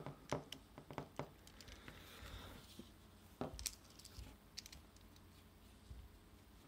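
Faint scattered clicks and light scrapes of small parts being handled on a quadcopter frame, as a pagoda antenna is screwed onto its SMA connector.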